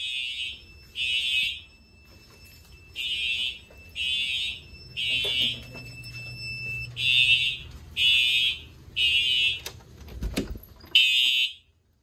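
Home fire alarm system's horns sounding the temporal-three evacuation pattern: three half-second blasts, a pause, and again, set off by the kitchen pull station and showing that it works. A faint steady high tone runs under the first seven seconds or so, there are a couple of knocks about ten seconds in, and the horns stop after a last blast near the end.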